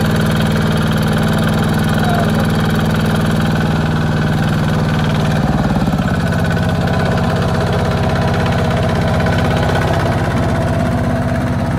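Single-cylinder diesel engine of a two-wheel walking tractor running steadily while hauling a loaded rice trailer up out of mud; its note changes about five and a half seconds in.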